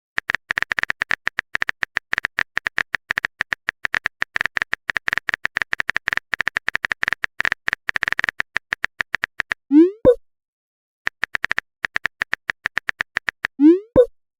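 Chat-app sound effects: rapid keyboard-typing clicks, each with a small beep, run for most of the first ten seconds. A short rising 'bloop' message-sent pop follows at about ten seconds. After a second, shorter run of typing clicks, another bloop comes near the end.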